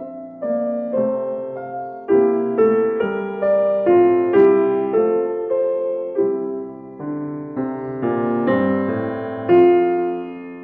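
Background piano music: a gentle melody of notes struck about twice a second, each ringing and fading over held chords.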